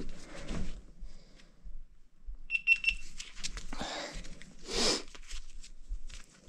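Three quick high beeps from a handheld action camera, followed by clicking and rustling as the camera and its bendy-leg tripod are handled with gloved hands.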